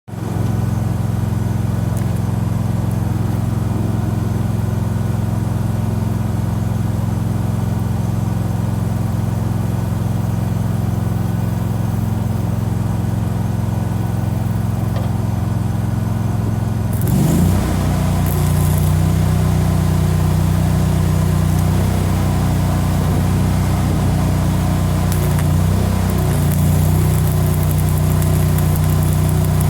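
Engine running steadily; about seventeen seconds in it picks up speed, its pitch rising a little, and a hiss joins on top.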